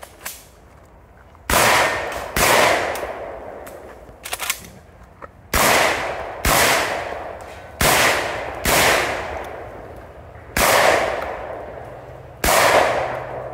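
Semi-automatic shotgun firing eight shots, mostly in pairs about a second apart, each with a long echoing tail.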